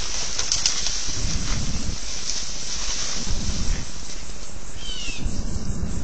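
Steady outdoor hiss and low rumble picked up by a security camera's microphone, with a short bird call about five seconds in.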